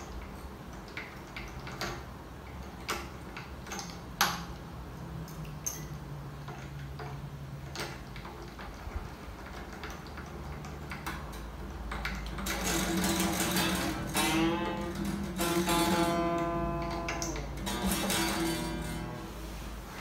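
Twelve-string acoustic guitar being restrung: small clicks and taps from handling the new string at the nut and tuning pegs, then from about twelve seconds in the strings plucked and ringing while the new string is tuned up, its pitch sliding upward in places.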